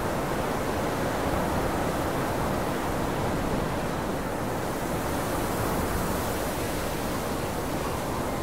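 Steady, even hiss and rumble with no distinct events in it, the noise floor of an old film transfer rather than any sound from the scene.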